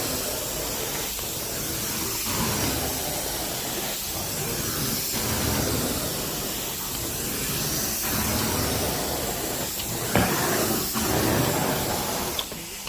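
Carpet cleaning extraction wand spraying and sucking water from the carpet: a steady hiss of suction with swells every second or two as it is drawn over the pile.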